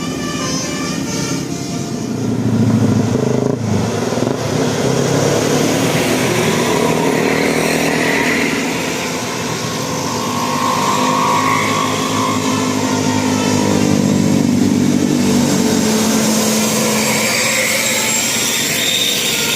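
Road traffic passing close by: motorcycle and car engines running and revving, swelling and fading as vehicles go past.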